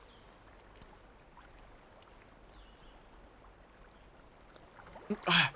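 Faint sloshing of shallow water as a man wades and reaches down among submerged branches, with a few light ticks. A brief loud voice sound comes near the end.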